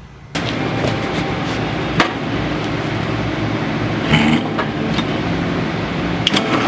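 Drill press running, its bit drilling out a bolt hole in a steel anvil foot plate to enlarge it from 3/8 to 1/2 inch. It starts suddenly just after the start and runs steadily, with a few sharp squeaks or clicks from the cut along the way.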